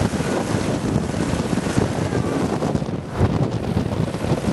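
Wind buffeting the microphone over a rough, irregular rumble from a trailer being towed over a dirt track by a riding lawnmower.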